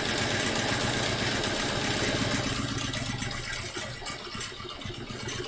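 Home sewing machine stitching fast while free-motion quilting: the needle strokes make a rapid, even patter over the motor's steady hum. It slows and gets quieter in the last couple of seconds.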